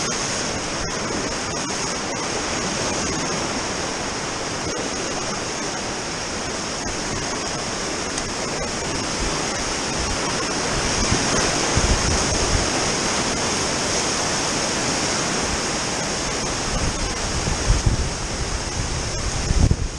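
Steady rushing of whitewater river rapids and waterfalls, heard from a kayak moving through the current. Dull low buffeting thumps join in from about halfway and are strongest near the end.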